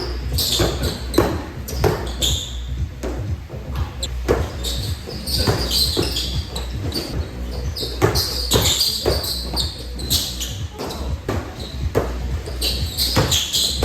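Basketball dribbled repeatedly on an indoor court, each bounce a sharp impact echoing in a large gym, with short high squeaks scattered among the bounces.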